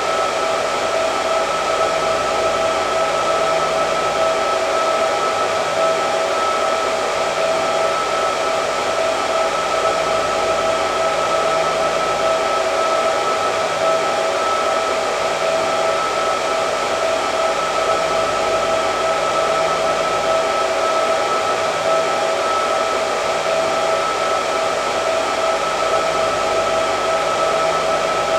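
Hair dryer running continuously: a steady rush of air with an even motor whine, no change in speed or pitch.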